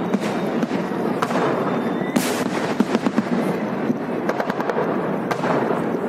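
Aerial fireworks shells bursting overhead: dense, continuous crackling full of sharp pops, with a loud bang about two seconds in and another near the end.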